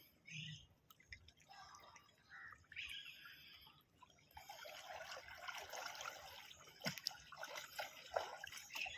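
Faint splashing and trickling of sea water, a little louder from about four seconds in, with faint voices in the first few seconds.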